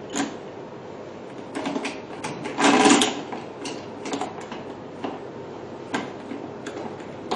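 Clicks and knocks of a PDT light arm being fitted and tightened onto a beauty machine, with one louder clatter lasting about half a second near three seconds in.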